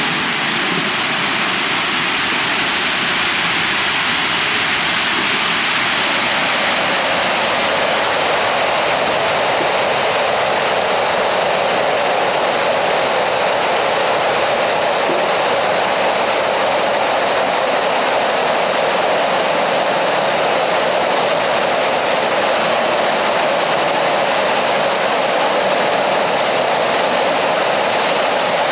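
Water in a limestone cave rushing steadily, a loud continuous noise. It grows a little fuller after about six seconds.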